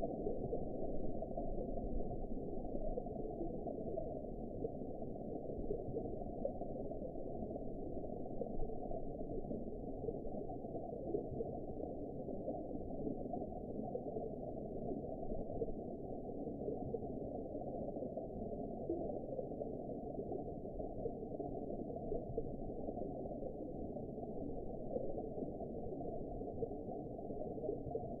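Steady, low, muffled underwater ambience: an even rush of water with nothing above about 1 kHz and no distinct events.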